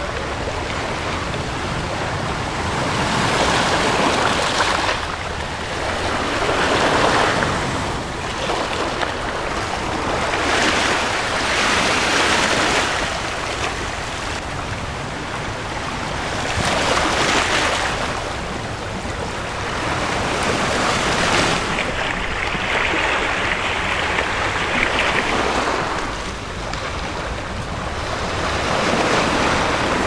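Small Black Sea waves breaking and washing up a sandy, shelly beach, the surf swelling and falling back every few seconds.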